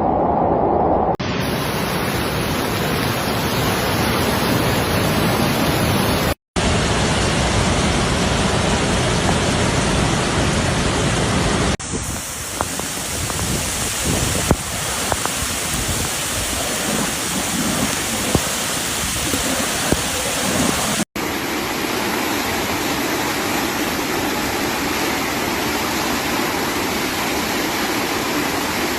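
Steady rush of floodwater and heavy rain in several short clips cut together, each switching abruptly to the next. Near the middle a scatter of faint clicks sits under the water noise.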